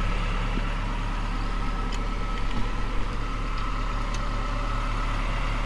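The 1972 Nissan Caravan's 2200 cc diesel engine idling steadily, with a few faint clicks from the wooden under-bed cabinet being handled.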